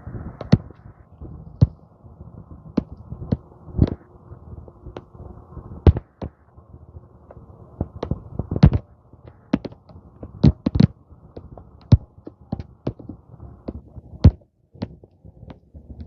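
Footsteps on a dirt trail: irregular thuds and clicks, about one or two a second, over a low rumble of wind on the microphone.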